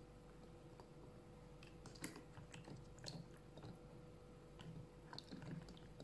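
Faint, scattered taps and clicks as raw eggs are set down one by one on a damp cloth inside an electric pressure cooker's inner pot.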